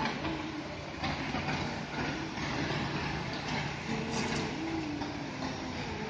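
Hino Ranger concrete mixer truck running steadily while discharging concrete: the diesel engine hums under a continuous rumble from the turning drum and the concrete sliding down the chute.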